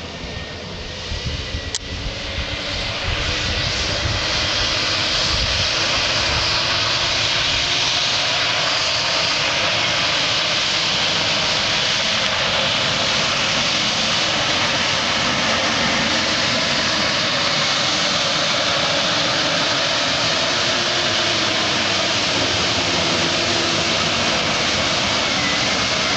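Lime spreader truck running as it spreads lime across a plowed field: a steady, loud mechanical rush that grows louder over the first few seconds as the truck comes closer, then holds steady.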